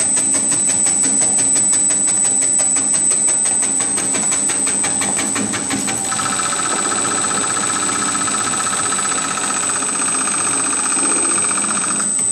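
Krupuk cutting machine running: its cutter clicks rapidly and evenly, about eight strokes a second, over a high steady whine. About halfway through the clicking stops and a steadier buzzing hum carries on.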